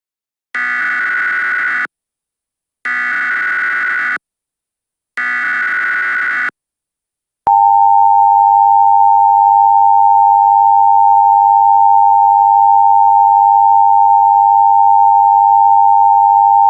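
Emergency Alert System tones: three short bursts of SAME header data tones about a second apart, then the steady two-tone EAS attention signal starting about seven and a half seconds in and holding loud and unchanging.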